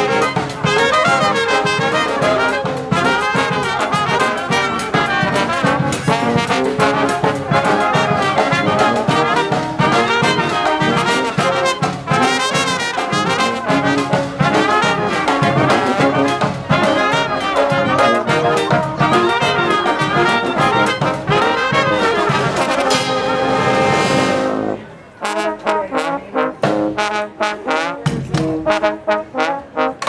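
Street brass band of trumpets, trombone, saxophones and sousaphone, backed by snare and bass drum, playing a lively tune. About 25 seconds in, the full sound breaks off into short, clipped hits.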